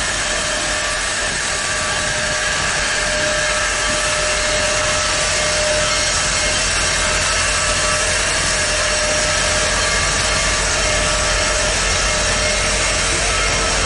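Union Pacific Big Boy No. 4014, a 4-8-8-4 articulated steam locomotive, rolling slowly past at close range with a steady hiss of steam and no distinct exhaust beat.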